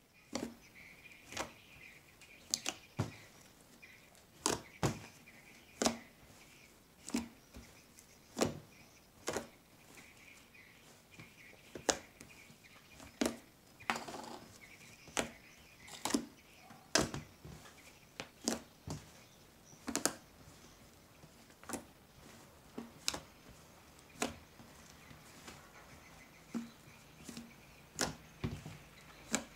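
Thick white slime with scattered foam beads being kneaded and squeezed by hand, giving sharp sticky clicks and pops, irregular and about one a second.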